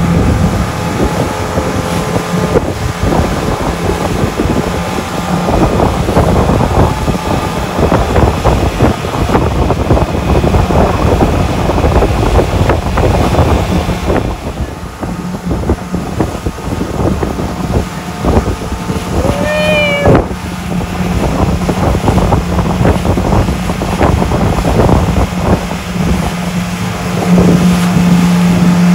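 Motorboat engine running with a steady low hum, under a constant rush of wind and water noise. About twenty seconds in, a brief high tone rises and falls once.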